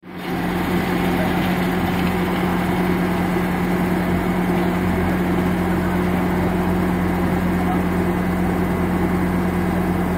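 Bobcat skid-steer loader running steadily while powering a hydraulic auger with a 6-inch bit in gravelly ground; a loud, even hum that holds one pitch throughout.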